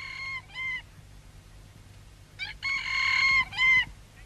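A rooster crowing twice, signalling daybreak: the end of one cock-a-doodle-doo at the start, then a second, louder full crow about two and a half seconds in.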